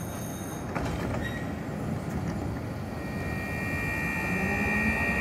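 Tatra KT4D tram closing up and starting to pull away: a short high tone at the start and a clunk about a second in as the doors shut. From about three seconds in comes a steady electrical whine, joined by a lower whine rising in pitch as the tram moves off.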